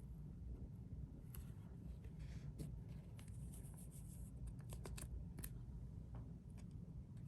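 Trading cards being handled, with faint rustles, scrapes and a few light clicks as the cards slide against each other, over a low steady hum.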